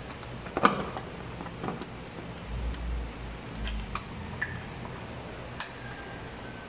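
Scattered light clicks and taps of a plastic lampholder being handled and fitted onto a junction box, with a low rumble between about two and a half and four seconds in.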